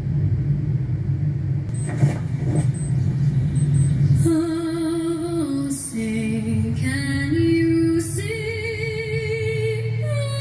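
A steady low rumble with a couple of knocks about two seconds in. About four seconds in, a woman starts singing long held notes with a wavering vibrato, stepping up and down in pitch.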